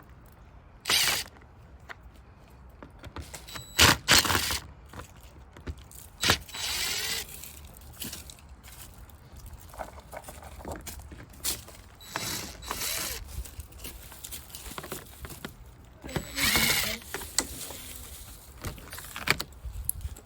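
Scattered knocks, clatters and short scraping sounds of tools being worked on the camper's wooden panelling, with the sharpest impacts about four seconds in.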